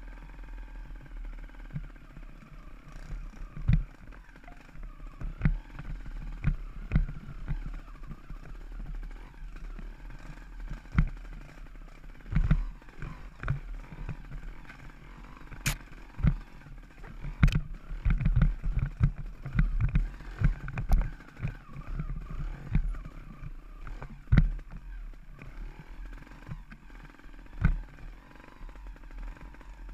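Off-road bike jolting down a rocky trail: irregular knocks and clatter of the wheels and suspension hitting stones, over a steady low rumble of wind and rolling. The knocks come thickest and loudest through the middle of the stretch.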